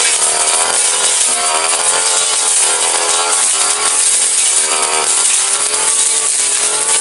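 Backpack brush cutter engine running hard, its pitch rising and falling over and over as a long cutting blade bites into undergrowth and small woody stems.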